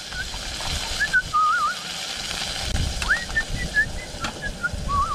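A warbling whistle in short phrases, its pitch wobbling quickly up and down, over the sizzle of a steak frying in oil in a frying pan on a camping gas stove.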